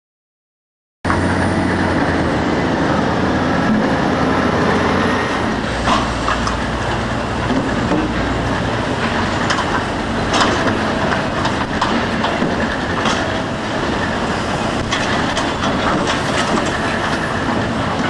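Sawmill log yard machinery: a steady heavy mechanical rumble with irregular clanks and knocks of logs on a steel log deck conveyor, beginning suddenly about a second in.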